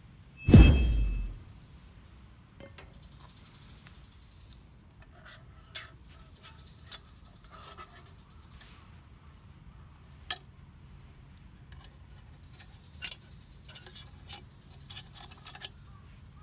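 Metal camp cookware and utensils being handled: one loud clank with a brief metallic ring about half a second in, then scattered clinks and taps, coming thicker near the end.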